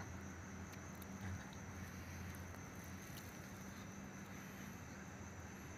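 Faint outdoor ambience: a steady high-pitched insect chorus with a low hum underneath and a few soft ticks.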